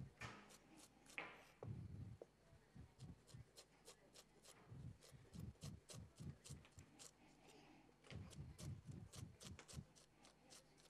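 Kitchen knife chopping on a plastic cutting board: quick runs of light, crisp taps, several a second, with short pauses between runs.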